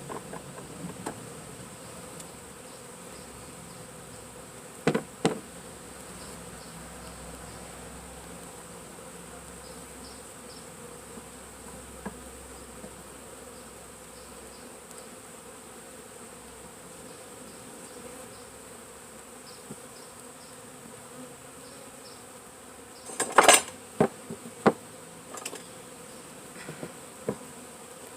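A mass of package honeybees buzzing steadily, with two sharp knocks about five seconds in and a cluster of louder knocks near the end.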